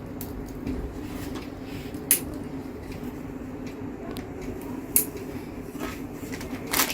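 Computer parts being handled during PC assembly: a few sharp clicks and light clatter of small hard pieces, the loudest about two seconds in, about five seconds in and near the end, over a steady low hum.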